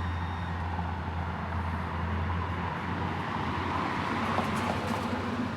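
Street traffic noise: a steady low hum with passing road noise that swells and fades over a few seconds.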